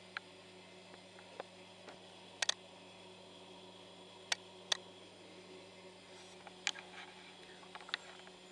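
Faint steady electrical hum with sharp, scattered clicks and taps every second or two, two of them in a quick pair.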